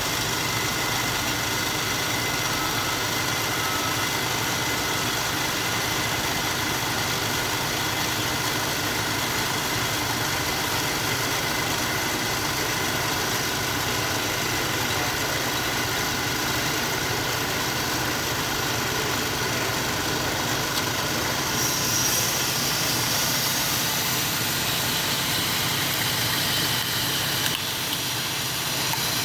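Amada HA-250 horizontal metal-cutting band saw running steadily, a continuous machine sound with several steady tones. About two-thirds of the way through, a higher hiss joins it.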